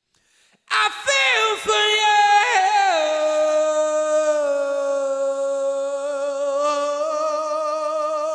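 A man singing unaccompanied in a rock vocal style: after a short silence he comes in loud with a run of notes falling in pitch, then holds one long note with a slight vibrato.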